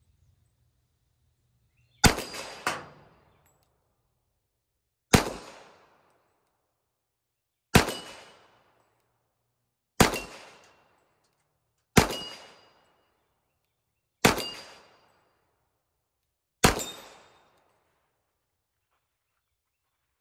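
Ruger SR1911 .45 pistol fired in a slow, deliberate string: seven sharp shots about two to two and a half seconds apart, the first followed within a second by a weaker report. After several shots comes a short metallic ring of a steel target plate being hit.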